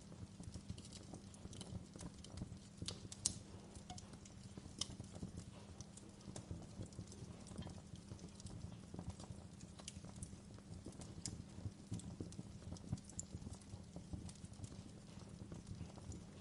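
Wood fire burning in a fireplace, crackling with irregular sharp pops over a steady low rumble of the flames, one pop louder than the rest about three seconds in.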